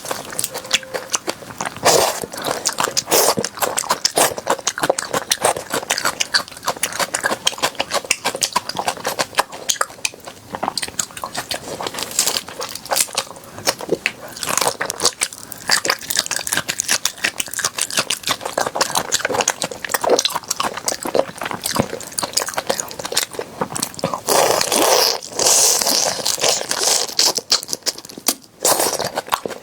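Close-miked crunchy chewing: dense, irregular crunches as a crisp food is bitten and chewed, with a louder, denser burst of crunching a little before the end.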